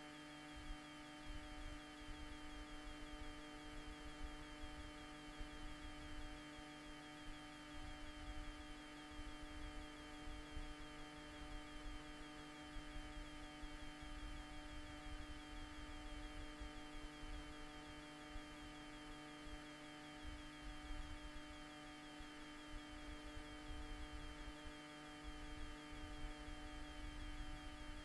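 Steady electrical hum made of several fixed tones that never change, over a low, uneven rumble.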